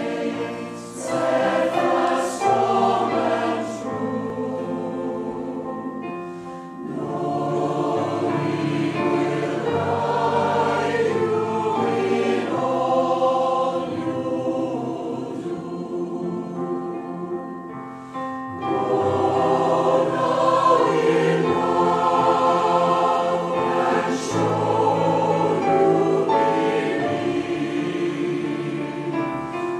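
Choir singing a sacred piece in long held phrases, with short breaks about six and eighteen seconds in.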